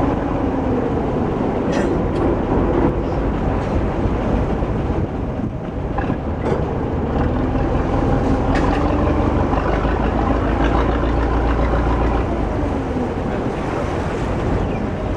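Engine of a small harbour ferry running steadily under way, heard on board: a continuous low rumble with a hum that wavers slightly in pitch, and a few brief knocks.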